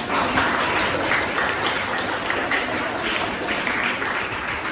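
Audience applauding, a steady patter of many hands clapping at once.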